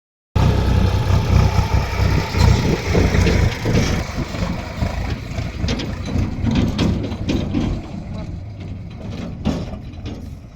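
Heavy diesel engine of earth-moving machinery running, loud for the first four seconds and then gradually quieter, with scattered knocks toward the end.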